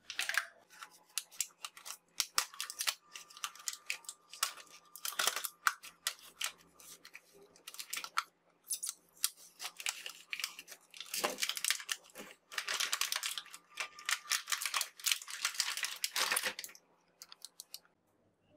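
Craft knife cutting along the edge of a stiff plastic blister pack, with irregular scraping, crackling and clicking of the plastic.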